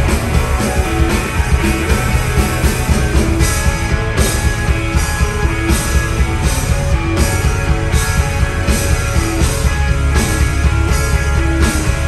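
Live rock band playing on stage, electric guitar over bass guitar and drums, with a steady drum beat.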